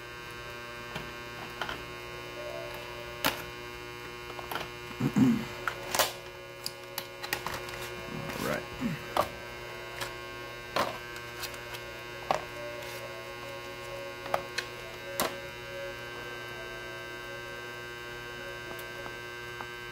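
Steady electrical hum, with light clicks and taps scattered through it as a watch-strap box is handled and opened and a strap is taken out; the sharpest click comes about six seconds in.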